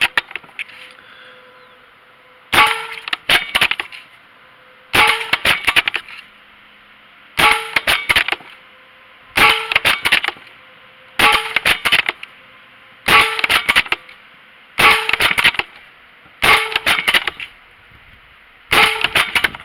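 Benjamin Armada .22 caliber pre-charged pneumatic air rifle firing nine shots about two seconds apart. Each shot is a sharp report followed at once by a short cluster of clicks and knocks.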